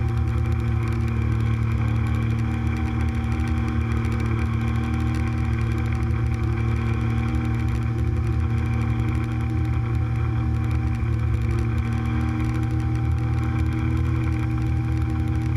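Speedboat engine running steadily at speed, a constant low drone with overtones that hold one pitch throughout.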